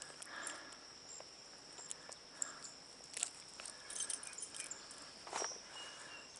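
Steady high-pitched chirring of insects along the stream, with a few brief faint clicks and rustles of handling scattered through it.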